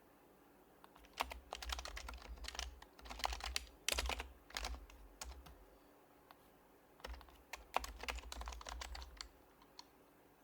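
Typing on an HHKB Professional HYBRID Type-S keyboard with silenced Topre switches: two runs of quick keystrokes, the first about a second in and the second after a short pause, about seven seconds in.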